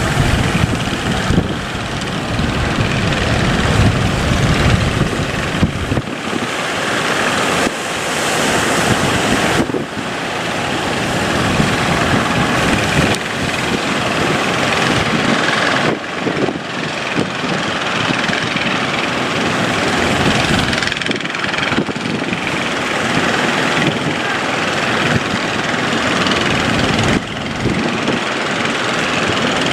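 Loud, steady rushing noise of a fishing boat under way in rough sea: its engine running beneath the wash of water and wind buffeting the microphone.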